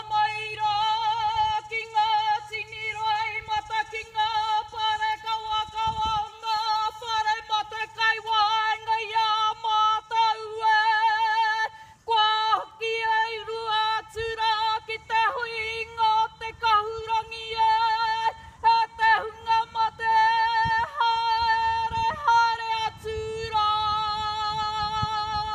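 Karanga: a woman's high ceremonial call of welcome in long, wavering held notes, opening with a rising glide and briefly breaking about halfway through.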